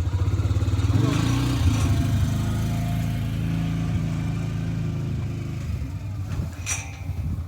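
A small vehicle engine running close by. Its pitch rises about a second in as it revs, then it runs steadily and eases off toward the end. A single sharp click comes near the end.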